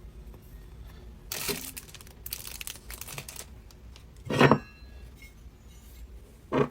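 Plastic packaging crinkling and rustling as it is handled, in two short spells, followed by two short thuds, the second one about two seconds after the first.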